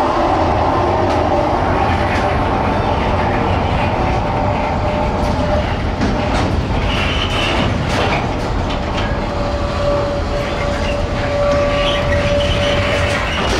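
Freight train of pocket wagons loaded with semi-trailers rolling slowly past, wheels rumbling and clacking over the rail joints. A faint, thin wheel squeal is drawn out for several seconds near the start and again in the second half.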